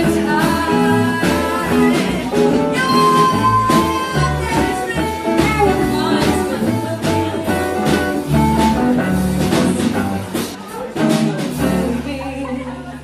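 Swing-blues band recording with singing, guitar and a bass line; the music fades down near the end.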